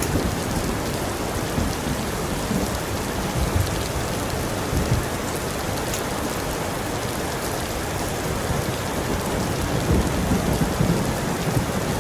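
Heavy rain falling steadily, with a low rumble of thunder underneath that swells slightly near the end.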